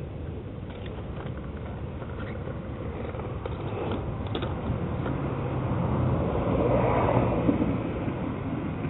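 Steady low outdoor rumble that swells and fades about seven seconds in, with a few light clicks from the paramotor frame being handled in the first half.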